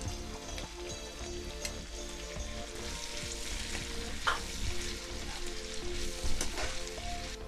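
Sliced onion, green and red peppers and carrot strips sizzling steadily in hot oil in a frying pan, with scrapes and clicks of a metal slotted spoon pushing the onion in and stirring.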